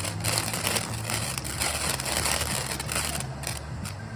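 Firework crackling and fizzing with a dense stream of tiny pops, dying down about three seconds in.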